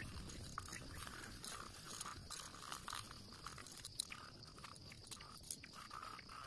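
Pencil scratching on drawing paper in quick, irregular shading strokes, with a sharper tap about four seconds in.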